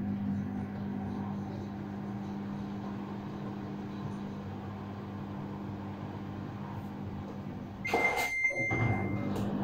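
Samsung AddWash front-loading washing machine running with a steady hum. About eight seconds in come a couple of clicks from its control-panel buttons being pressed, and a high beep is held for about a second and a half.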